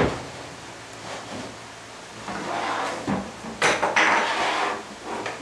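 Wooden drawer boxes being handled and stood on end on a workbench: a sharp wood-on-wood knock at the start, a sliding scrape, then two more sharp knocks about three and a half seconds in as the boxes bump together.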